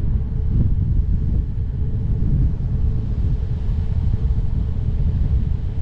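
Wind buffeting the microphone of a bicycle rider moving at speed: a steady low rumble without breaks.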